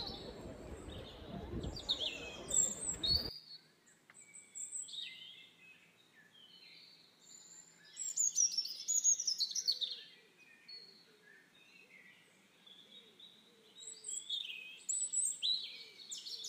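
Small birds chirping and singing, many short overlapping calls and quick falling whistles, busiest about eight seconds in and again near the end. For the first three seconds a steady low outdoor background noise lies under the birds, then cuts off abruptly.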